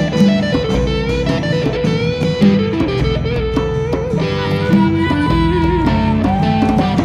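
Live band music led by an electric guitar playing held, bending melody notes over a steady accompaniment.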